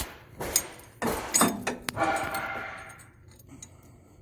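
Steel parts clinking and clanking as a motor's U-bracket and its bolts are handled and fitted: a few sharp knocks, then a ringing metal clank about two seconds in that fades out.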